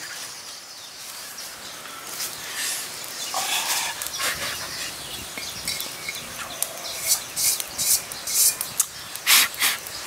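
Small fire of dry twigs and leaves being lit and tended under a wok: rustling and crackling, with a run of sharp snaps in the last few seconds.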